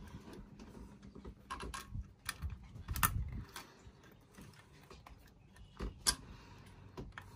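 Small metallic clicks and ticks of needle-nose pliers working a cotter pin out of a throttle linkage, irregular and quiet, with the sharpest clicks about three and six seconds in.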